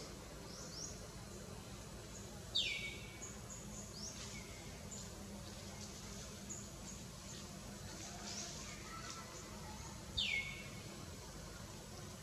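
Birds chirping in the surrounding trees: many short high calls that sweep downward in pitch, two of them louder, about two and a half seconds in and again about ten seconds in, over a low steady hum.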